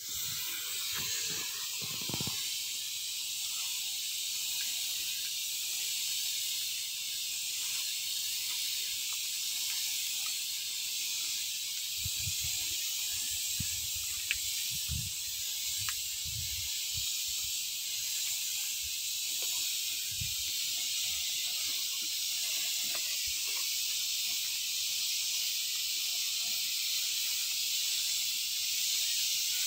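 Double-nozzle spray gun hissing steadily as it sprays a fine mist of liquid under pressure from a hose.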